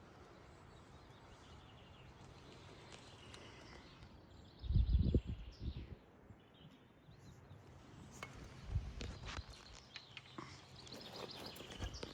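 Quiet lochside outdoor ambience with faint bird chirps, broken about five seconds in by a brief low rumble on the microphone, followed by a few small clicks and knocks.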